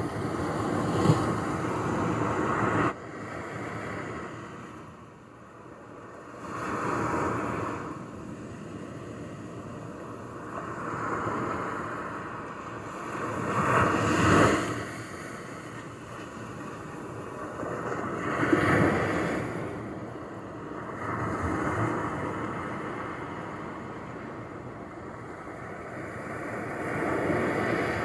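Small waves lapping and washing onto a shore, a soft hiss that swells and fades every few seconds, with stronger washes near the middle. The sound drops abruptly to a quieter stretch about three seconds in.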